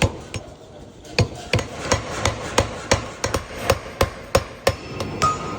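Forging hammer blows on a bar of 4140 steel: sharp, evenly spaced strikes at about three a second, starting about a second in after a few lighter knocks.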